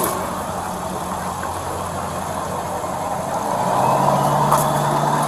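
Motor vehicle engine idling with a steady low hum, over street traffic noise; it gets louder about four seconds in.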